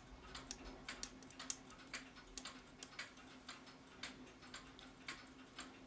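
Faint ticking of mechanical clocks, about two to three sharp ticks a second in an uneven pattern, over a faint steady hum.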